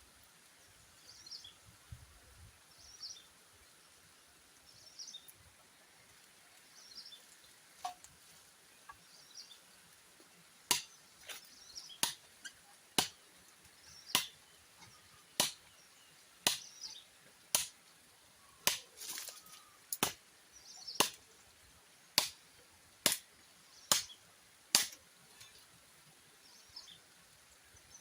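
Chopping bamboo with a blade: a run of about fifteen sharp strikes, roughly one a second, beginning after a stretch where only bird chirps are heard and stopping a few seconds before the end. Birds chirp throughout.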